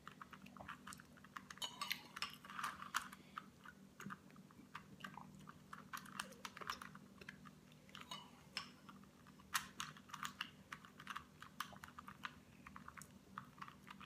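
A Rubik's Cube being twisted by hand: a run of irregular, quick plastic clicks and clatter as its layers turn, over a faint steady low hum.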